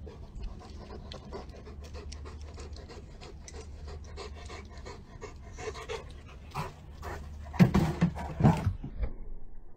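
A dog panting quickly and evenly, with a couple of louder knocks near the end.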